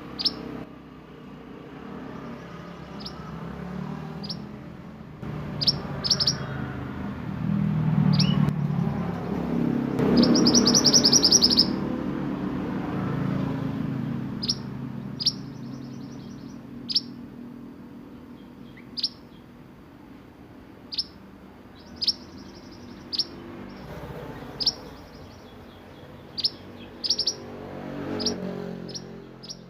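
Male mantenan (minivet) singing: short, sharp high chirps repeated at irregular intervals, with one rapid trill lasting about a second and a half near a third of the way in. A low rumble sits under the song and grows louder through the middle.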